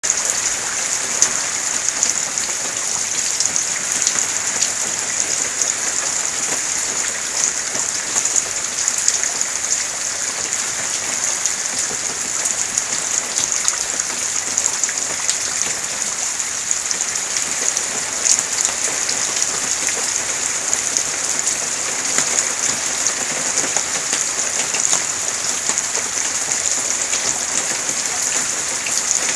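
Steady rain falling: an even hiss with many small drop ticks throughout, from the outer bands of Hurricane Sandy.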